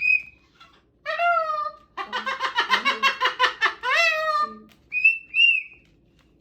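Pet cockatoo calling: short whistled notes and drawn-out calls that bend in pitch, with a fast chattering run of about ten pulses a second lasting around two seconds in the middle.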